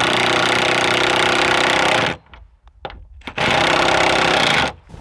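Cordless power driver sinking screws into a wooden board, run twice: a steady run of about two seconds, a pause with a few short trigger blips, then a second shorter run that cuts off near the end.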